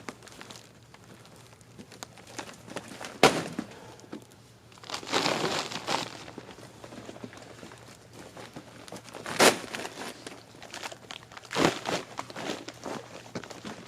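Handling noises: rustling and scuffing steps, with two sharp knocks, one about three seconds in and one about nine and a half seconds in, and a few lighter knocks near the end.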